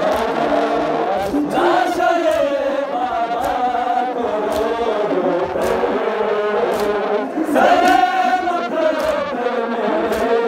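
A group of Ashura mourners chanting a noha (lament) in unison, with a sharp slap about once a second keeping time, typical of rhythmic chest-beating (matam).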